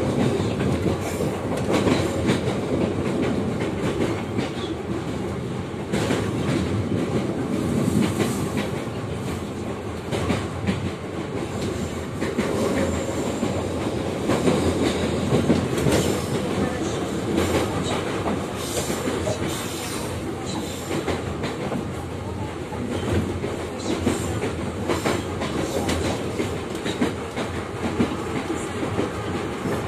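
Type E metro train running at speed, heard from inside the car: a steady rumble of wheels on rail with irregular clicks and clacks over rail joints.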